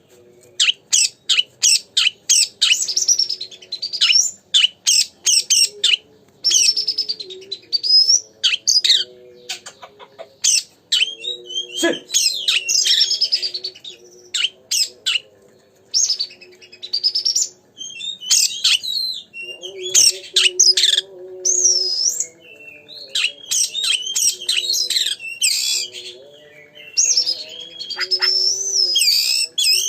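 Oriental magpie-robin (kacer) singing in full, vigorous song: fast runs of sharp chirps and whistled notes in quick bursts separated by short pauses.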